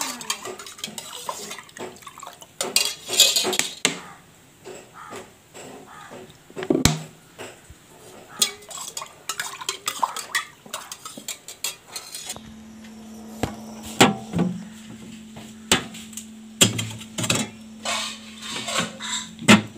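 Liquid being swished and mixed by hand in a stainless-steel pot, with repeated clinks and knocks of the steel vessel. The pot is then handled into a fridge's freezer compartment, with more knocks, and a steady low hum comes in about twelve seconds in.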